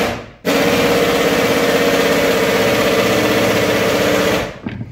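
Power drill spinning the input shaft of a car gearbox, a loud steady whir of the motor and the turning gears. It stops at the start, runs again from about half a second in, and cuts off near the end.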